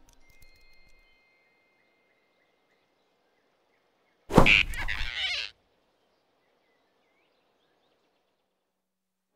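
Near silence, then about four seconds in a sudden loud burst lasting just over a second: a cartoon sound effect as the big rabbit snatches the flying squirrel off the branch.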